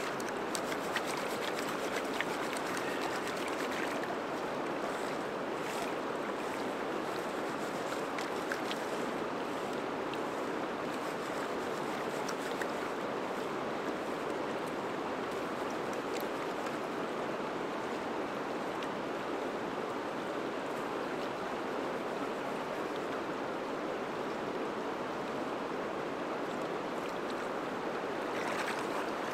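River water rushing steadily, with a few faint ticks.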